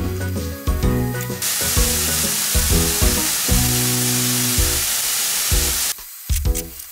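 Ground pork sizzling as it is stir-fried in a nonstick frying pan, about half cooked. The sizzle starts about a second and a half in and cuts off suddenly near the end. Background music plays throughout.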